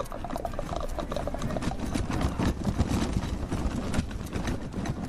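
Horse hooves clip-clopping on a hard street, quick knocks throughout over a low rumble of street traffic that grows louder in the middle.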